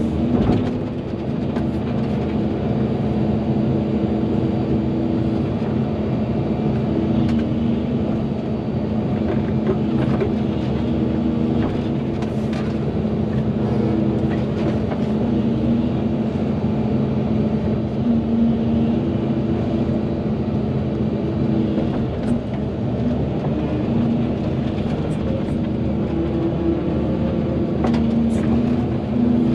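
Volvo EC220DL excavator's diesel engine running steadily while it works, its pitch shifting a little as the load changes, with a few sharp knocks scattered through.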